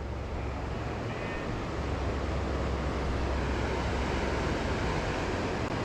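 Steady rush of river water, with wind rumbling on the microphone; it swells a little over the first couple of seconds and then holds steady.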